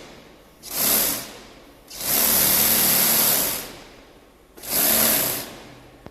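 Double-needle hair weft sewing machine run in three bursts, a short one, a longer one of nearly two seconds and another short one, each a high-pitched whirring hiss that winds down gradually when it stops.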